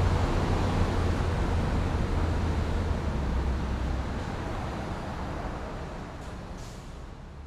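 Busy downtown street ambience: steady traffic noise with a low engine rumble that drops away about halfway through, the whole sound fading out gradually.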